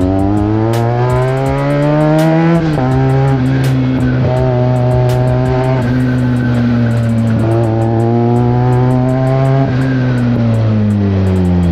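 Benelli TNT 300i's parallel-twin engine through an aftermarket IXIL exhaust, heard from the moving bike. The revs climb for about two and a half seconds and drop sharply once, hold fairly steady, pick up again past the middle, then fall away near the end as the throttle closes.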